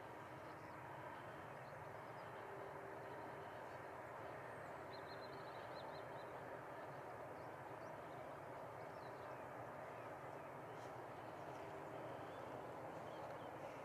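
Faint, steady rumble of a distant freight train running along the line, with small birds chirping over it, including a quick run of high chirps about five seconds in.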